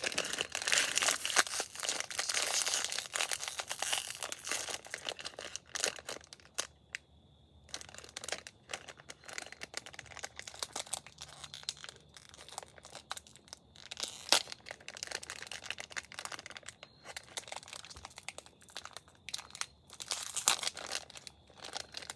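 Packaging being crinkled and torn open by hand: dense rustling and crackling at first, then scattered crinkles and snaps, and another busy flurry of crinkling near the end.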